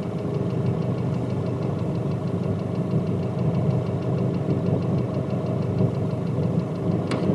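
Nissan YD25 four-cylinder common-rail diesel idling with a rapid, even ticking clatter, which the owner attributes to the injectors.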